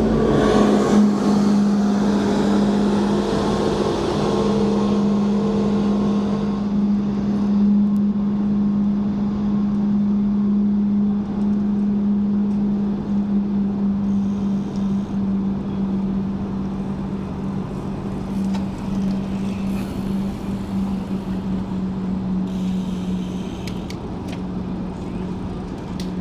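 A steady low engine drone runs throughout, with the broad noise of a vehicle passing over the first few seconds before fading away.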